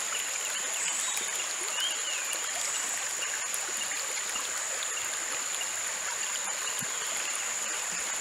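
Shallow stream running over pebbles, a steady trickling rush, with a high, steady insect drone above it.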